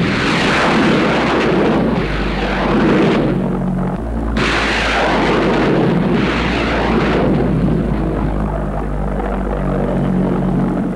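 V-1 flying bombs launching off the ramp: two long rushing roars, the first starting at once and the second about four seconds in, over a steady low drone.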